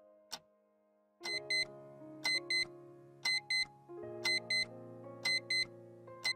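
Analog alarm clock ticking once, then about a second in its alarm starts beeping: pairs of short high beeps, about one pair a second. Soft sustained music chords play underneath.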